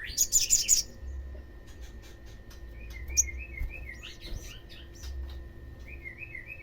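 Olive-backed sunbird song: a loud burst of high, rapid twittering at the start, then strings of short, quick up-slurred chirps repeated in phrases.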